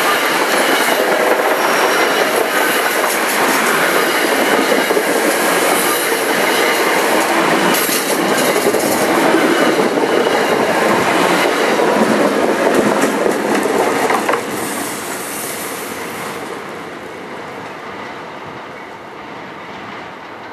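New Jersey Transit commuter coaches passing at close range, their wheels running on the rails. The noise is loud and steady, drops sharply about two-thirds of the way through, then fades away.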